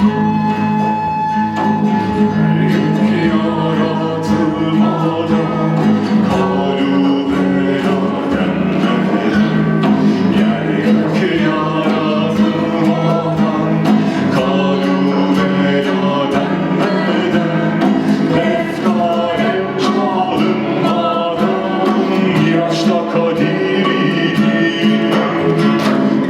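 Music with a steady low drone under a moving melody line, with regular light plucked or struck notes and what sounds like singing.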